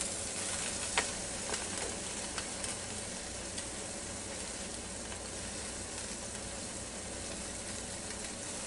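A hot air-fried whole chicken and its juices sizzling steadily in the Ninja Foodi's cooking pot, with a few light clicks in the first few seconds.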